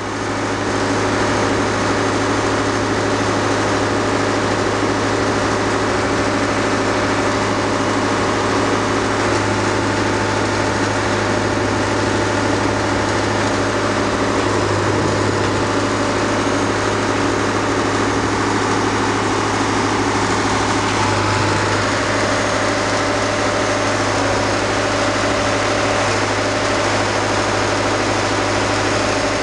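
A large engine idling steadily, with a constant low hum.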